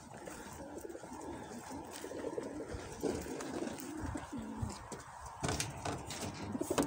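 Racing pigeons cooing inside the crates of a pigeon transport truck, low warbling coos, with a couple of sharp knocks near the end.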